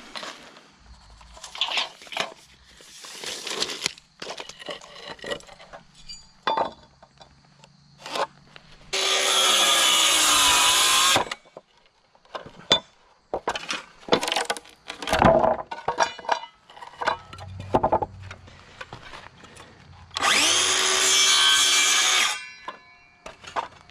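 DeWalt cordless circular saw cutting through a wooden trim board twice, each cut loud and about two seconds long, about nine and twenty seconds in, the motor whining as it spins down after the second cut. Between the cuts, knocks and scrapes of the board, tape measure and speed square being handled.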